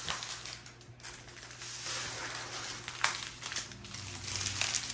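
Small plastic bags of diamond-painting drills crinkling and rustling as they are handled, with a sharp click about three seconds in.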